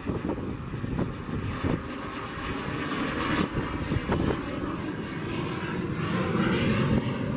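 Cessna Citation business jet climbing out after takeoff, its twin turbofan engines making a steady rushing noise that grows a little louder near the end.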